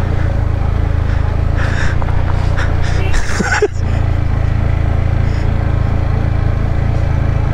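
Yamaha MT-15's single-cylinder engine running steadily at low revs as the motorcycle rolls slowly along a rough road. There is a brief rattle and a short dip in the engine sound about three and a half seconds in.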